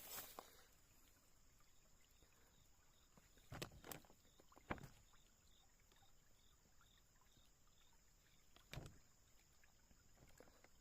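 Near silence, broken by a few brief faint knocks or rustles: a pair about three and a half seconds in, one soon after, and one near the end.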